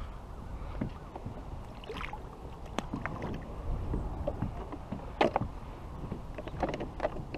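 Scattered light clicks and knocks of fishing gear being handled in a plastic sit-on-top kayak, with a sharper knock about five seconds in, over a steady low rumble of wind and water.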